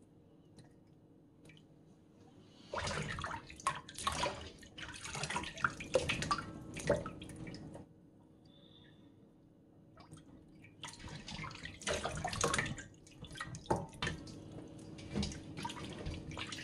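Water splashing and dripping in a stainless steel bowl as hands work sator beans in it, in two irregular spells with a short quiet gap between; the first few seconds are nearly silent.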